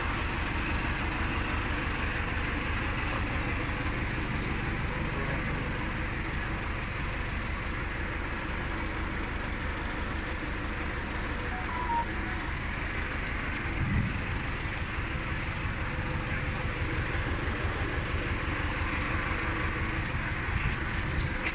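John Deere 582 Premium round baler running under power from a tractor's PTO, a steady mechanical run over the tractor engine, during a test spin to check that it works. There is a short low knock about two-thirds of the way through.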